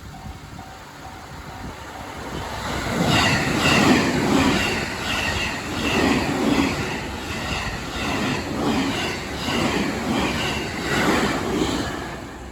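A train passing over a railway level crossing, its wheels clattering over the rail joints in a regular rhythm about once a second. It builds up about three seconds in and fades away near the end.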